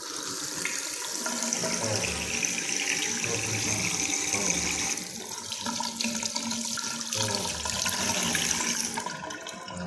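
A bathroom washbasin tap runs a steady stream of water that splashes into the basin drain. The tap is fed by gravity from a rooftop water tank with no booster pump. The splashing starts sharply as the tap is opened and eases briefly about halfway through.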